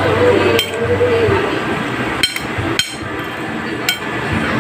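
A metal spoon clinking against a ceramic plate about four times while tossing sliced cucumber salad, over a steady background hum.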